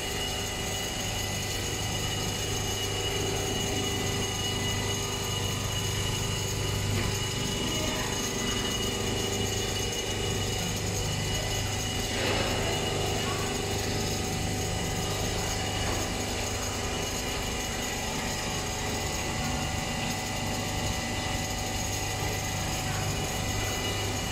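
Richpeace computerized quilting machine running, its sewing head stitching at speed with a steady, fast mechanical chatter and hum as the gantry carries it across the fabric.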